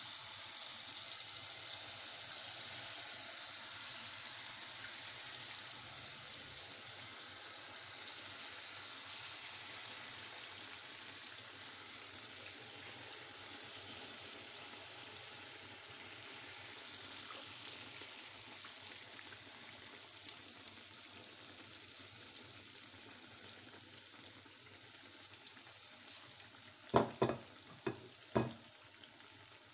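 Churro dough frying in a pan of hot oil: a steady sizzling hiss that slowly fades as the dough cooks. A few sharp knocks come near the end.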